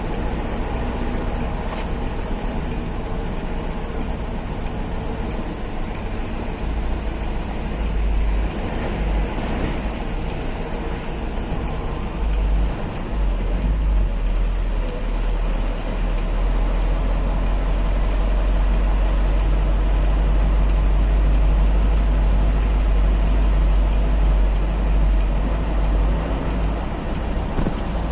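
Truck driving on the road: a steady low engine and tyre rumble that grows louder about halfway through, with faint regular ticking.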